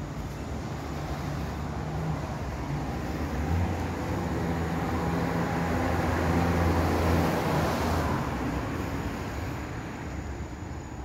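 A motor vehicle passing on a nearby road, its engine and tyre noise swelling to a peak about six to seven seconds in, then fading away.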